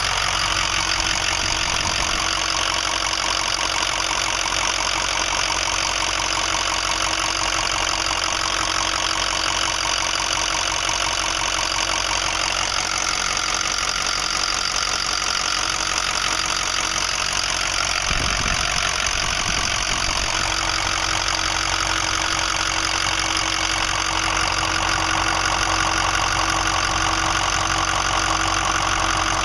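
2005 Ford 6.0L Power Stroke V8 turbo-diesel running steadily at idle. The owner suspects a fault from a bad injector, the FICM or the injector wiring harness, and says it seems to be getting worse.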